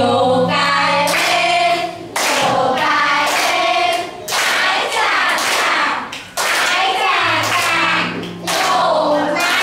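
A group of young children singing a song together, in phrases of about two seconds with short breaks between them.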